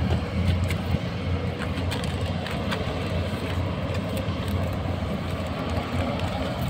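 Steady low engine rumble, with a few light clicks and knocks scattered through it.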